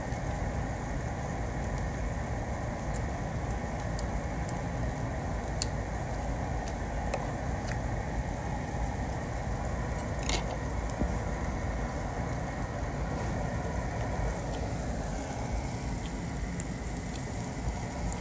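Food sizzling and crackling on a barbecue grill over a steady low rumble, with a few sharp clicks.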